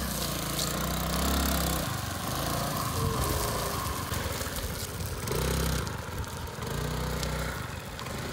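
Hero Maestro scooter's single-cylinder engine revving in about three bursts, with quieter running between them, as it spins the rear tyre wrapped in cello tape for burnouts.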